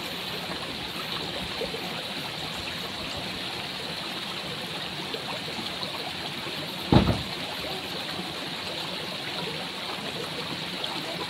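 A steady rushing noise, like running water or wind, with one low thump about seven seconds in.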